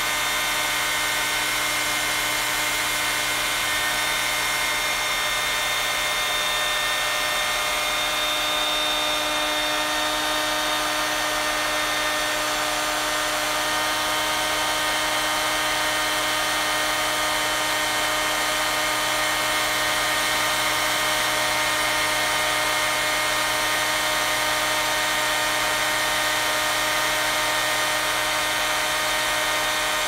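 Handheld hair dryer running steadily: a constant motor-and-fan whine over the rush of blown air.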